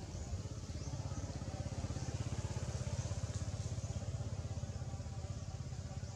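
Engine running with a rapid low throb, growing louder about a second in and easing off near the end.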